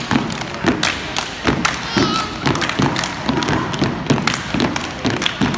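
Step team stomping their feet and clapping their hands in a steady rhythm on a wooden gym floor, about three strikes a second.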